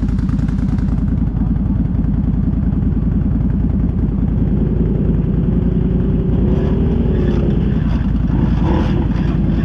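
ATV engine running steadily at an even level.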